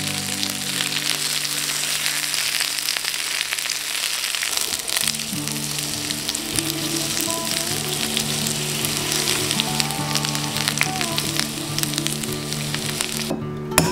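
Potato slices sizzling as they fry in oil in a nonstick frying pan, with a steady hiss that cuts off near the end. Background music plays underneath.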